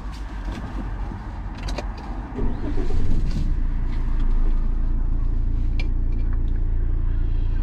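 Road and engine noise inside a moving motorhome's cab: a steady low rumble that evens out about halfway through.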